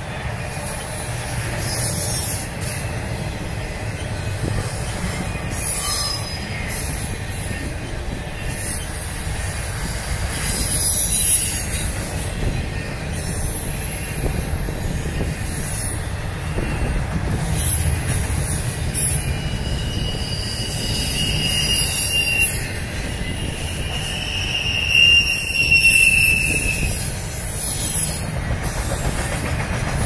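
A long intermodal freight train of loaded trailer and container cars rolling past with a steady low rumble of wheels on rail. Intermittent high wheel squeals come and go, loudest in the second half.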